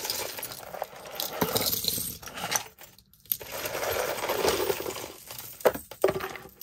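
A pile of metal costume jewelry (bracelets, chains and beaded pieces) clinking and jangling as it is set down and shifted on a tabletop, with a short pause about three seconds in and a sharp click near the end.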